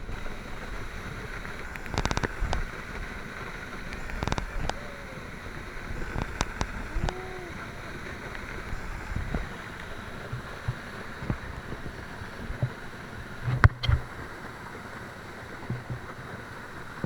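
Waterfall rushing steadily, with a few sharp knocks and clicks close to the microphone.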